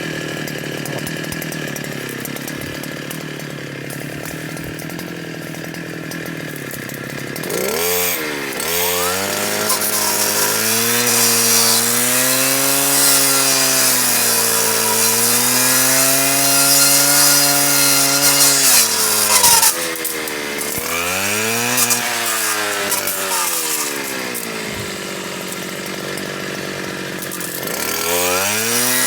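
Stihl KA 120 R powerhead spinning a circular saw blade fitted with chainsaw teeth, cutting wood. The motor runs steadily at first; from about seven seconds in its pitch sags and recovers again and again as the teeth bite, staying pulled down for several seconds in the middle, then dipping twice more near the end.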